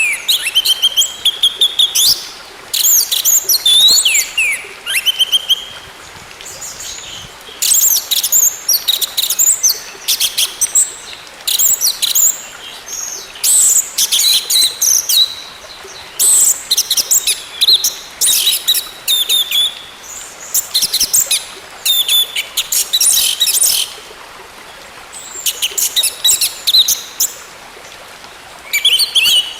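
Orange-headed thrush singing: rapid, varied phrases of high chirps and whistles, in bursts of one to two seconds with short pauses between, with a few sliding whistles in the first few seconds.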